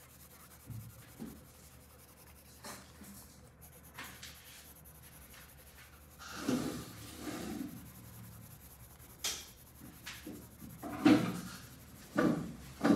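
Colored pencil scratching on paper as a hand shades in with back-and-forth strokes, with a few louder knocks in the second half.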